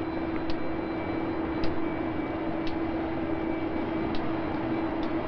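Steady machinery hum inside a submarine, one low tone over a rushing hiss, with faint ticks about once a second.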